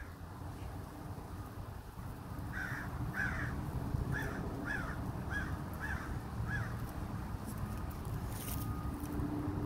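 Crow calling: a quick run of about eight short calls, roughly two a second, beginning a few seconds in and lasting about four seconds.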